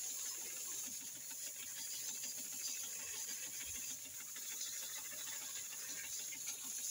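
High-pressure water jet from a pressure washer hissing steadily as it sprays into a bare engine cylinder block, flushing out metal filings.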